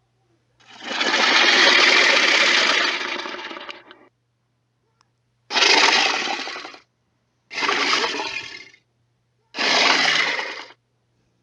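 Allosaurus sound effect: one long, harsh, raspy call lasting about three seconds, then three shorter calls about two seconds apart.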